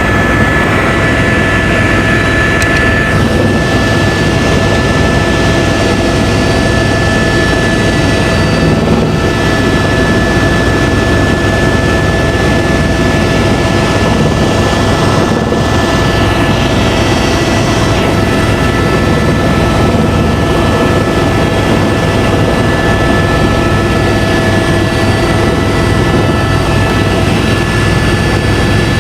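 Helicopter in flight: its turbine engine and rotor make a loud, constant drone with a steady high whine over it.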